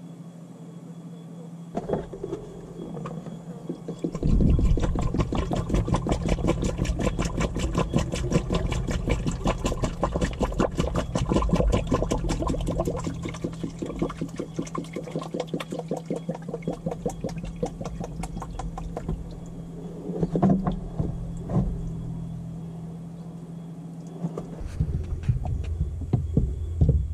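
Coolant glugging in rapid even pulses as it pours from a plastic jug into a funnel on the Subaru Sambar's radiator filler, over the truck's engine idling with a steady low hum. A heavier low rumble comes in near the end.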